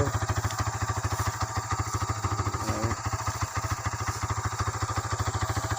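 Yamaha Scorpio Z single-cylinder four-stroke motorcycle engine running steadily at low revs in a homemade mini buggy, an even fast putting beat.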